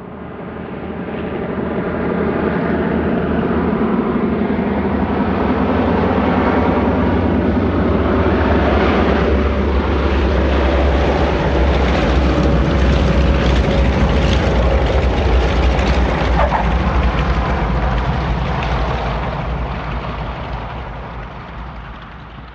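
Heavy engine rumble with a steady low hum. It swells up over the first couple of seconds, holds loud, then fades away near the end.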